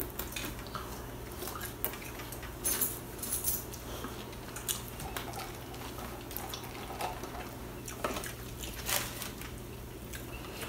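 Eating at a table, with chicken wings picked apart by hand: scattered small clicks, taps and rustles from food, paper wrappers and cups, over a steady low hum.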